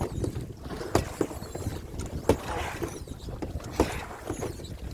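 A small boat being paddled by hand, its outboard motor dead: paddle strokes splashing through the water, with a sharp knock about every second and a half, over wind rumble on the microphone.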